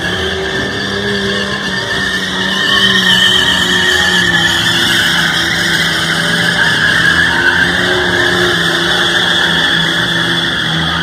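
Car tyres squealing in a smoky burnout, the engine held at high revs; the sound grows louder about two and a half seconds in.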